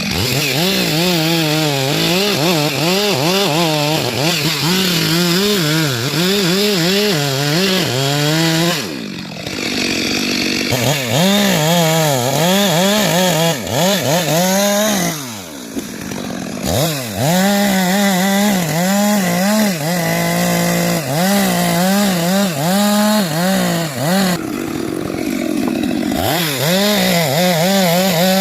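Chainsaw cutting into a rubber tree, its engine note wavering up and down under load. The engine drops off twice, about nine and fifteen seconds in, and revs back up each time.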